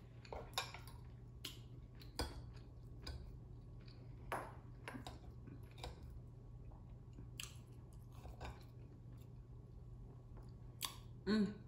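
Close-miked chewing and eating sounds: irregular soft clicks and crackles of food being bitten and chewed. A brief louder sound comes near the end.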